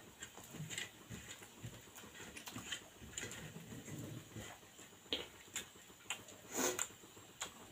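Eating by hand, heard close up: chewing and lip smacks, mixed with fingers gathering rice across a steel plate. Many small clicks throughout, with one louder click near the end.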